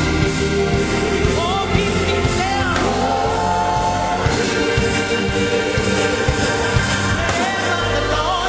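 Gospel song: singing with held and sliding notes over a full band with steady bass.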